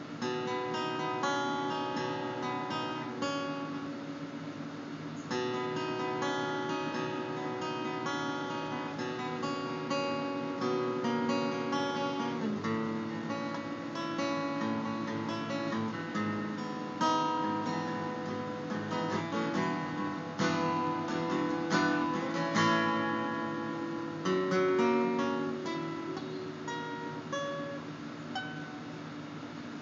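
Steel-string acoustic guitar played by hand: a steady run of strummed and picked chords.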